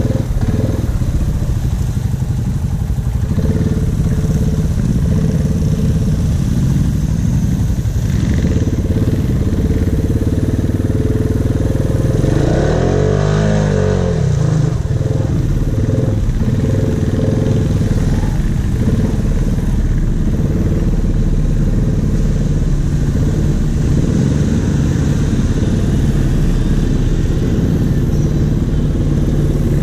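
2016 Honda Rubicon ATV's engine running steadily under way, with one rise and fall in revs about halfway through.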